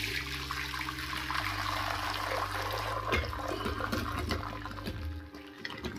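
Hot cooking water and boiled Indian gooseberries (amla) poured out of a pot into a basket strainer over a vessel: a steady rush of draining water that tapers off about five seconds in.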